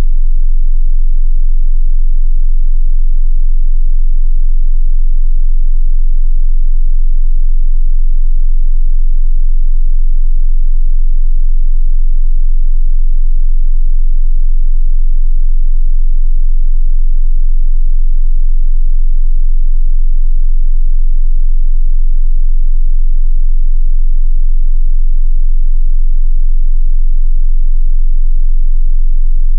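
A continuous 22 Hz sine-wave test tone for subwoofers: one very deep, steady bass tone with no change in pitch or level.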